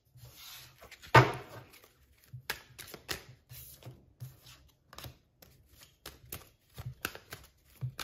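A tarot card set down on a table with a sharp click about a second in, then a deck of tarot cards being shuffled by hand: an irregular run of soft card clicks.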